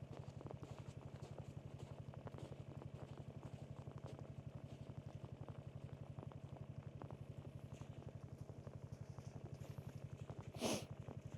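A John Deere utility vehicle's engine idling, a steady fast low putter. A brief louder sound stands out near the end.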